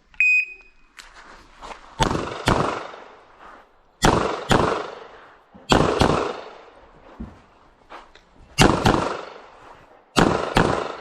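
A shot timer beeps once, then a Bul SAS II Open-division race pistol fires double taps: five quick pairs of sharp shots about two seconds apart, each pair roughly a third to half a second between shots.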